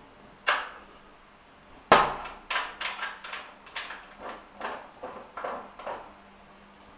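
Indoor spin bike's handlebar post being adjusted and locked: a click, then a sharp knock about two seconds in, followed by a run of quick clicks, about three a second, growing fainter as the handlebar clamp is fixed in place.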